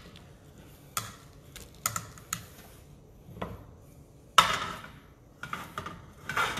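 Irregular sharp clicks and taps of kitchen utensils on a plate as food is plated, with one louder clatter a little after four seconds in.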